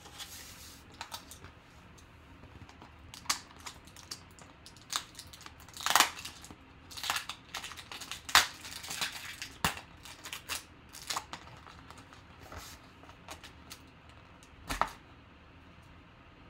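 Cardboard bat tube being opened by hand: seal tape peeled and torn off and the plastic end cap worked free, giving irregular crinkling, scraping and sharp clicks, the loudest about 6 and 8 seconds in.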